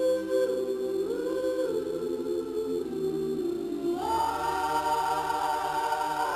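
A choir singing slow, held chords. The harmony shifts every second or so and lifts to a higher, fuller chord about four seconds in.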